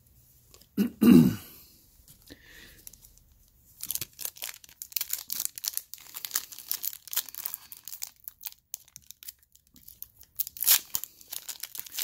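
A single cough about a second in. Then the crinkling and tearing of a foil trading-card pack wrapper being pulled open by hand, with a sharper rip near the end.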